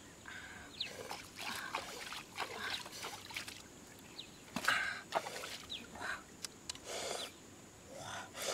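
Water splashing and trickling in irregular bursts as a fish is rinsed and sloshed in a pot of water.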